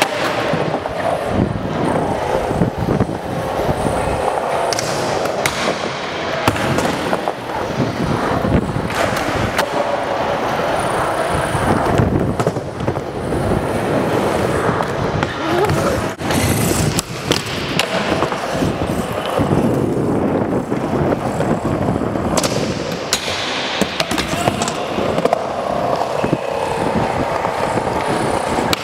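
Skateboard wheels rolling steadily over a smooth concrete floor, broken several times by sharp clacks of the board hitting the ground, all ringing in a large metal-walled building.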